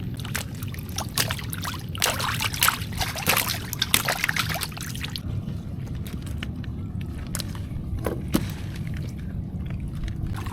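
Water splashing and trickling in quick, irregular splashes, busiest in the first half, over a steady low rumble of wind.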